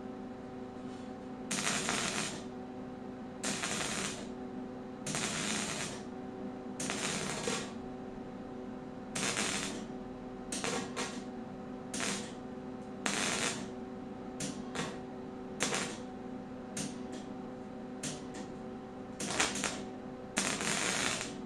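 Wire-feed welder stitch-welding sheet metal: about eighteen short bursts of arc crackle, each a fraction of a second to about a second long, with brief pauses between, over a steady hum.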